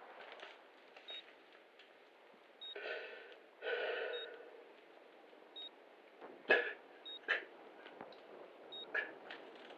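A faint, short, high electronic beep repeating about every second and a half. About three seconds in, a man's voice makes two short breathy sounds, and a few sharp clicks follow later.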